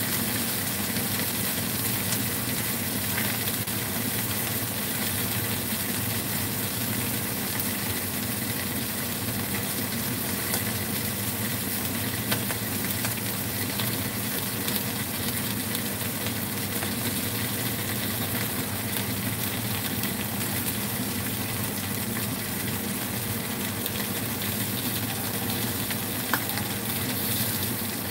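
Pieces of mayao fish sizzling steadily as they shallow-fry in a little oil in a nonstick pan, a continuous hiss with scattered small crackles. A steady low hum runs underneath.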